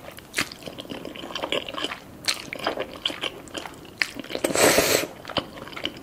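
A person chewing soft, saucy carbonara ramen noodles, with many small wet mouth clicks, and one loud slurp about four and a half seconds in.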